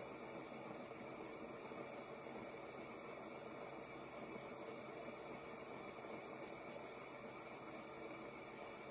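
Fidget spinner spinning steadily on its ball bearing: a faint, even whir with a hiss.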